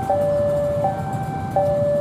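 Electronic railway warning alarm steadily alternating between a higher and a lower tone, each held about three-quarters of a second, sounding as a train approaches. A low rumble runs underneath.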